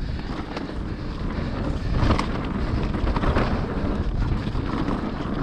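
Wind buffeting the microphone and mountain bike tyres rumbling over a trail during a descent, with a few sharper rattles over bumps, the loudest about two seconds in.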